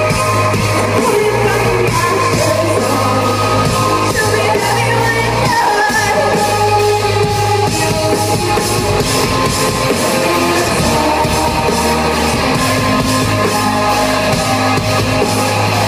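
Live band playing loudly on a club stage, with electric guitars, keyboards, a pulsing bass line and a singer's voice, recorded from within the audience.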